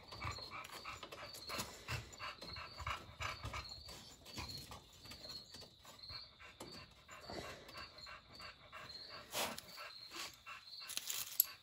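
An animal panting quietly, soft breaths coming irregularly, with a couple of light clicks near the end.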